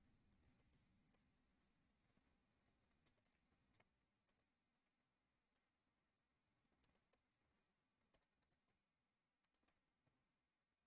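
Faint, scattered clicks of a computer mouse and keyboard over near silence, coming singly or in small clusters every second or two.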